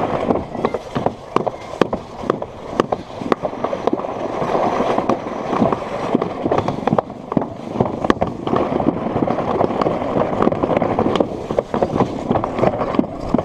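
Plastic alpine-slide sled running fast down its concrete trough track: a continuous rough rumble and scrape, broken by frequent irregular sharp clacks and knocks.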